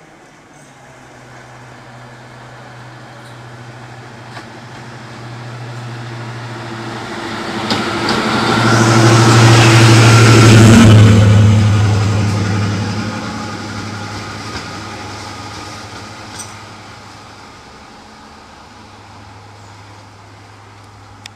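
British Rail Class 55 Deltic diesel locomotive passing close by, its twin Napier Deltic two-stroke engines building to a loud peak about halfway through and then fading back to a low drone.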